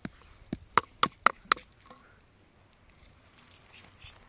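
Wooden digging sticks striking and prying at hard, stony soil: about six sharp knocks within the first two seconds, then quiet.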